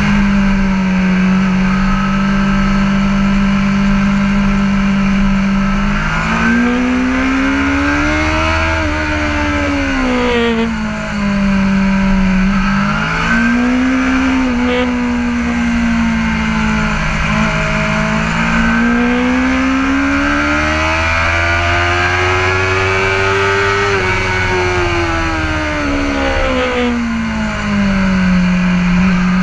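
BMW S1000RR inline-four racing engine through an Akrapovic exhaust, heard on board the bike under race riding. Its pitch holds steady for about six seconds, then rises and falls several times as the throttle is opened and closed through corners, with one long climb through the middle before dropping back near the end.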